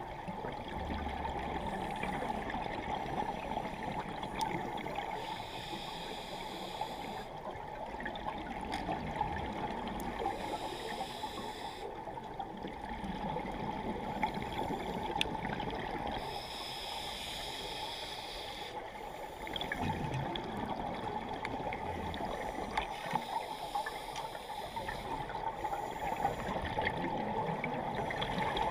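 Underwater sound of scuba breathing: bursts of exhaled bubbles from a regulator, each about two seconds long, coming every few seconds over a steady underwater hiss with faint clicks.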